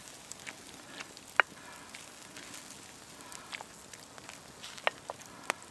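Campfire crackling, with irregular sharp pops over a faint hiss, while a wooden spoon stirs lamb stew in a clay tagine set over the coals. The loudest pops come about a second and a half in and twice near the end.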